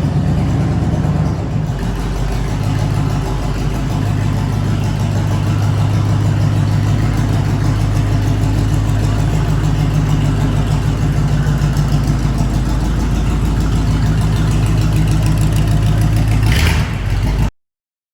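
Vehicle engine running, its pitch shifting up and down in steps a few times, cut off abruptly near the end.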